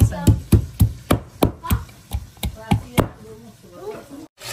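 Knife chopping food on a cutting board in steady, even strokes, about three or four a second, stopping about three seconds in.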